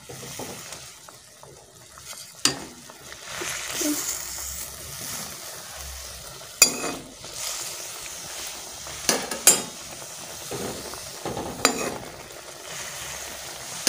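A steel ladle stirs and turns instant noodles in a steel pot, knocking and scraping against the pot several times, over the steady hiss of the noodles cooking in a little water on the heat.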